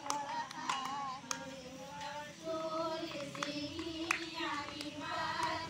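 Women's voices singing, with some notes held for about a second and a few sharp clicks scattered through.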